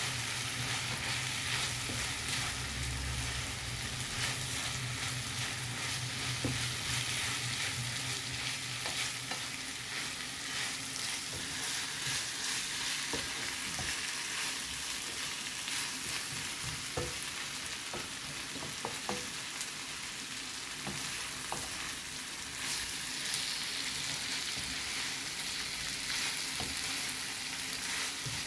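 Sliced chicken tikka, onions and peppers sizzling in a frying pan while being stirred, with scattered clicks and scrapes of the utensil against the pan. A low steady hum runs underneath and stops about ten seconds in.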